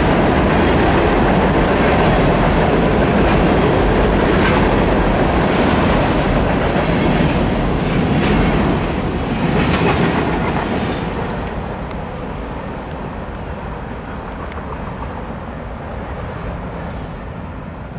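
Norfolk Southern mixed freight train's cars rolling across a steel truss bridge, wheels clattering over the rails. About ten seconds in the noise drops away as the end of the train clears, leaving a quieter, fading rumble.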